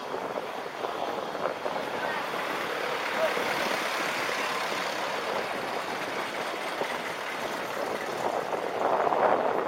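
Street traffic and wind noise picked up while riding an electric kick scooter along a city road: a steady noise with no distinct engine note, growing louder near the end.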